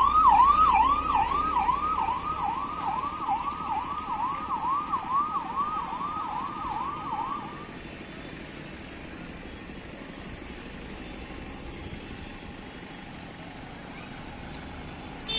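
Vehicle siren wailing rapidly up and down, about two and a half sweeps a second, as convoy vehicles pass. It stops about seven and a half seconds in, leaving only a steady low background hum.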